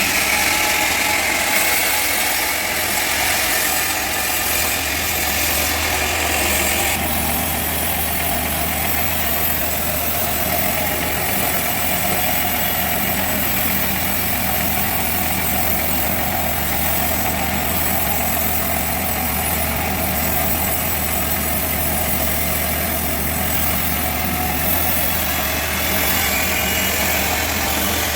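Sawmill engine running steadily at a constant speed, with a brighter hiss over it for the first seven seconds that drops away abruptly.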